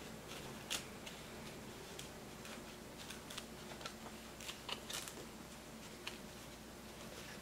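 Faint scattered clicks and taps of a small plastic spoon pressing against a thin plastic kit tray as water and dough powder are mixed, with a stronger click a little under a second in and a short cluster of clicks around the middle.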